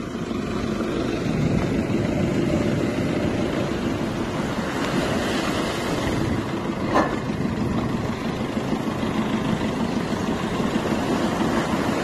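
Surf breaking on the shore mixed with a farm tractor's engine running steadily at the water's edge, with one short sharp knock about seven seconds in.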